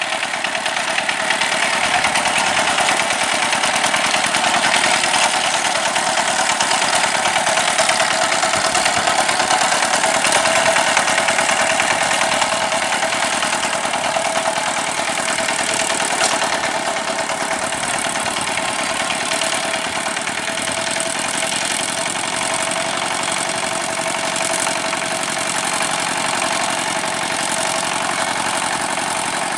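Yanmar diesel engine of a paddy-field tractor running steadily with a fast, even chugging.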